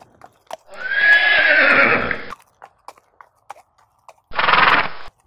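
A horse whinnying: one long whinny that falls in pitch, then a shorter second call about four seconds in, with faint light clicks between.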